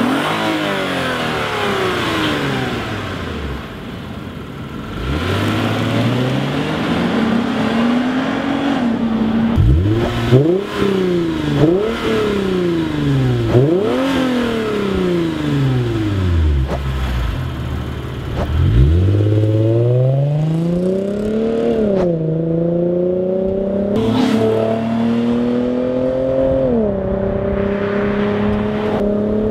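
Lexus IS350's 3.5-litre V6 heard through its stock exhaust and then an ARK GRiP aftermarket exhaust. It revs and drives past several times, the pitch swinging up and falling away. Later it accelerates hard, the note climbing and dropping back at each of three upshifts.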